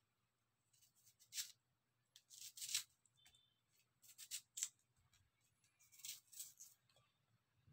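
Kitchen knife slicing through a red onion held in the hand: crisp, short cutting strokes in four quick clusters, each slice snapping free.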